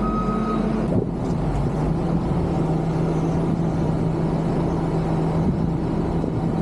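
JCB loader's diesel engine running steadily with a low hum while the boom lifts a full bucket of lime. A short high beep sounds at the very start.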